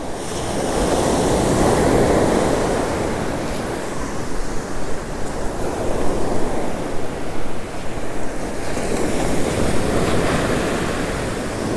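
Ocean surf breaking and washing up the beach, swelling about two seconds in, with wind buffeting the microphone in the second half.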